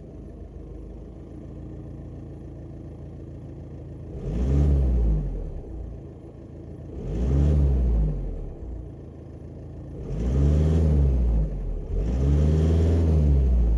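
VW Amarok's 2.0 four-cylinder turbodiesel, with its stock exhaust, idling steadily, then revved four times. Each rev rises and falls in pitch, capped at about 2500 rpm by the rev limiter. The last two revs come close together, and the final one is held longest.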